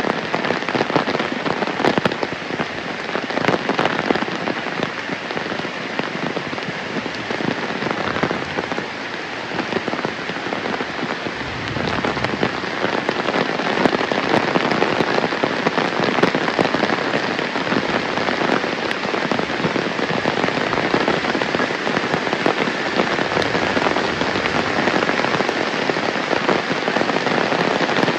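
Heavy rain pouring steadily, a dense patter of individual drops hitting surfaces. It grows a little louder and fuller about eleven seconds in.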